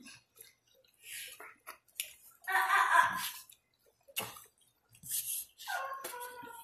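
A person chewing roasted turkey eaten by hand, with small wet mouth noises and clicks. A short voice sounds about halfway through, and a steady pitched tone comes in near the end.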